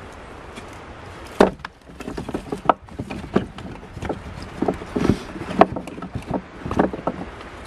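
Split firewood being stacked by hand on a wooden shelf: a series of irregular wooden knocks and clatters as the pieces are set down and strike one another, starting with a sharp knock about a second and a half in.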